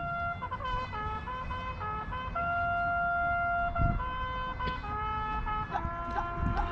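Slow opening music of long held notes, sometimes two or three sounding together, changing every second or so, with one long sustained note in the middle and shorter notes near the end.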